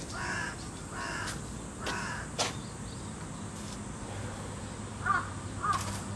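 Crow cawing three times about a second apart, followed by a few softer bird calls near the end.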